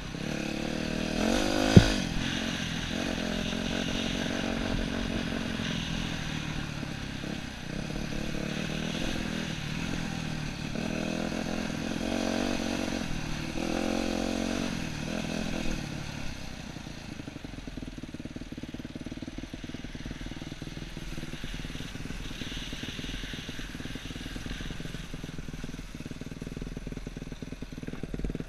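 Yamaha YZ250F's single-cylinder four-stroke engine revving up and down as the dirt bike is ridden along a dirt trail, with one sharp knock about two seconds in. After about sixteen seconds the engine drops to a quieter, steady low-rev run.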